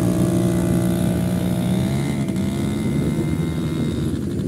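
Quad bike (ATV) engine running steadily, with a small dip in pitch about halfway through.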